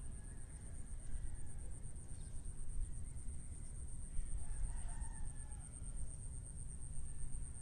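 Low, uneven wind rumble on the microphone, with a faint rooster crow about five seconds in.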